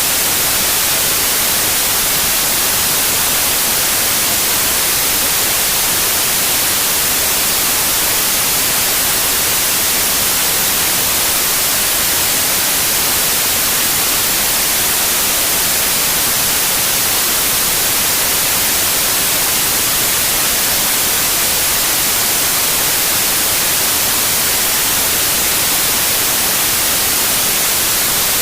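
Steady white noise: an even, unchanging hiss, brightest in the treble, with no gusts or other events.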